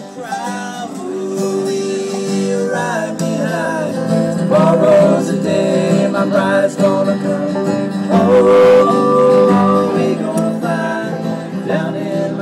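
Country music in a bluegrass style: plucked acoustic guitar with a singing voice.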